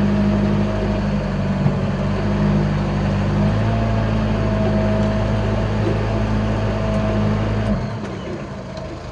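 Engine of an old Mitsubishi L300 pickup, heavily overloaded with timber, running steadily under load as heard from inside the cab, with a thin steady whine above the engine note. The engine note shifts a little past a third of the way in and falls away near the end.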